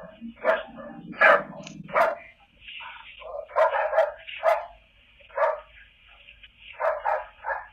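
A dog barking over and over in short, irregularly spaced barks.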